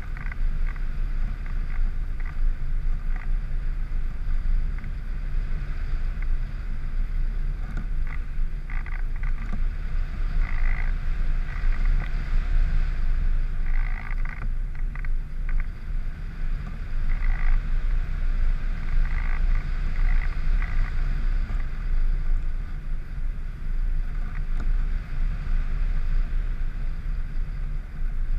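Wind buffeting the microphone of an airborne camera, a steady low rumble, with a faint steady high whine and irregular short bursts of higher noise through it.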